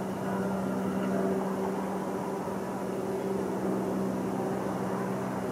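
A boat engine running at a steady speed: one constant hum under a steady rushing noise.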